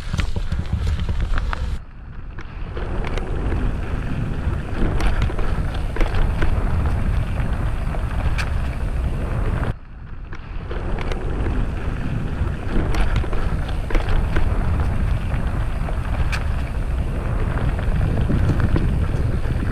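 Mountain bike riding a dirt trail: wind buffeting the camera microphone and tyres rolling over dirt and leaves, with frequent clicks and knocks from the bike rattling over bumps. The noise drops out sharply twice, about two seconds in and again near the middle.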